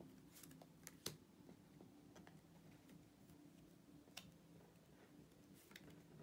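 Near silence with a few faint, sharp clicks and taps of tarot cards being handled on a table, the loudest about a second in, over a faint steady hum.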